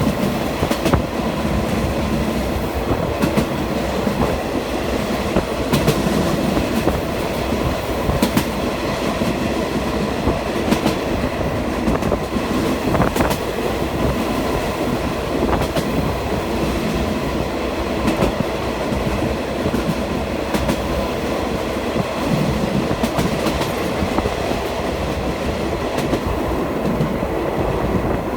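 Train cars rolling past, with a steady running rumble and sharp wheel clicks over the rail joints every second or two.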